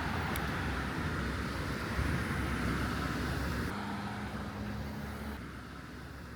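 Road-vehicle noise: a steady low rumble with a hiss over it. A steady low hum joins in for about a second and a half past the middle, and the sound drops quieter near the end.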